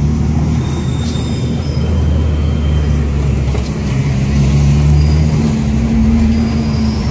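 Car engine running steadily, heard from inside the cabin with road noise. About four seconds in, the drone gets louder and rises in pitch as the car accelerates.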